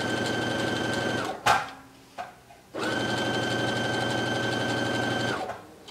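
Electric sewing machine running steadily at an even speed with a constant motor whine, sewing a single row of long gathering stitches at its longest stitch length. It stops about a second in, a sharp knock and a small click follow, and then it starts again and runs until shortly before the end.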